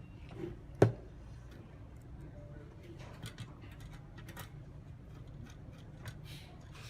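A single sharp click about a second in, then scattered light clicks and taps over a low steady hum.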